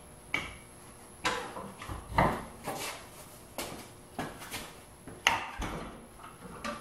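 A series of knocks and clunks from the foot-pedal retracting casters of a heavy cast-iron wood lathe, as a pedal at each end is stepped on to jack the lathe up or let it down, with footsteps between.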